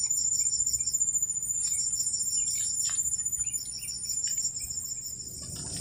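Insects in the swamp grass chirring steadily in high-pitched, pulsing trills, with a few faint ticks over it.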